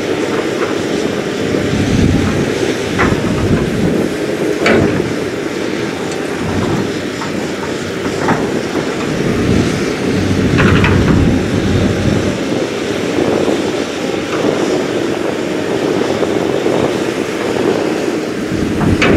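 Kobelco crawler excavator's diesel engine running steadily under working load as it digs and swings soil, with a few sharp metallic clanks spread through.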